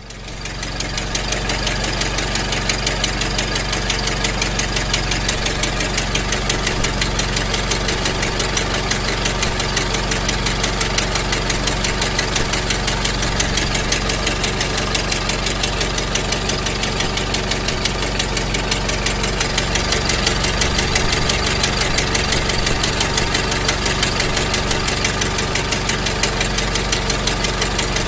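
Ford Model T's four-cylinder flathead engine idling steadily with an even, rapid chugging beat, swelling up over the first couple of seconds.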